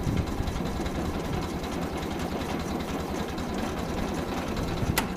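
International Cub Lo-Boy 154's four-cylinder engine being turned over steadily by the electric starter without firing, with a click near the end. It has compression but no spark, which the owner puts down to a bad ignition coil.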